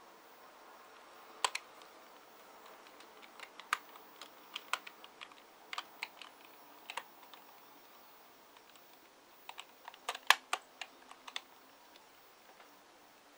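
Computer keyboard keys clicking irregularly as a hamster walks across them: scattered single clicks and short runs, with the busiest and loudest run about ten seconds in.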